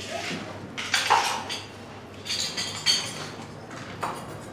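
Plates and cutlery clattering and clinking in a few short bursts.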